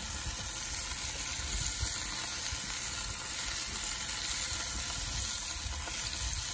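Bacon-wrapped steaks sizzling steadily in a very hot cast-iron skillet, a steady hiss of searing meat, over a low uneven rumble.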